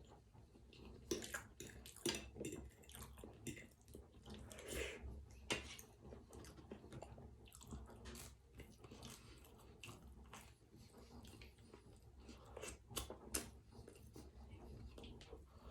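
A person chewing food close to the microphone: faint, irregular wet mouth sounds and clicks, with a few sharper smacks.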